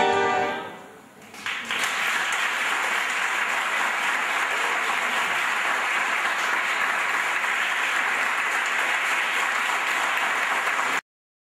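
The final chord of the piano, violin, accordion and cello quartet dies away in the first second. An audience then breaks into steady applause, which cuts off abruptly near the end.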